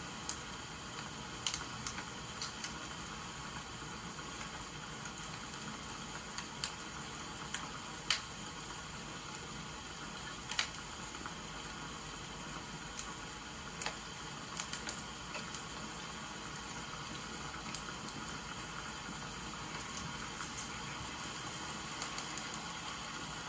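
Crackling wood fire over a steady hiss of rain, with scattered sharp pops every second or two.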